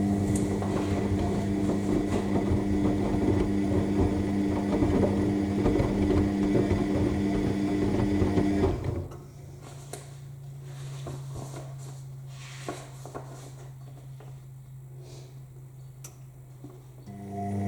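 AEG L7FE7461BI front-loading washing machine tumbling its load in the main wash: the drum motor runs with a steady low whine over the noise of the turning load for about nine seconds. The drum then stops and only a quieter low hum remains, until the motor starts turning the drum again near the end.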